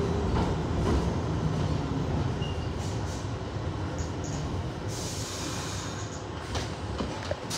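R62A subway car running on the rails: a steady rumble of wheels and car body with a few faint clicks, slowly getting quieter.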